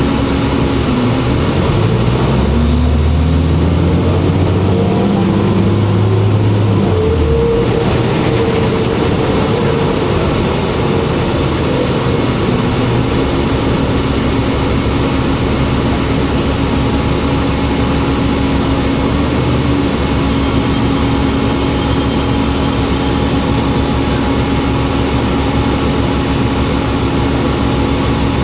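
Interior sound of a New Flyer D40LF bus's Cummins ISL inline-six diesel and Voith automatic transmission pulling away: the engine note climbs for several seconds as the bus accelerates, drops back, then settles into a steady drone as the bus cruises.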